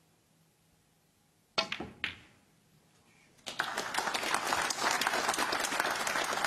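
Snooker cue striking the cue ball with sharp clacks of balls colliding about a second and a half in, then audience applause from about three and a half seconds in, the loudest part.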